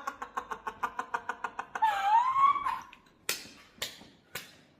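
A person's voice in a fast run of pulsing sounds, about six a second, fading out over the first second and a half. A short high voiced sound that rises and falls follows, then three sharp taps in the second half.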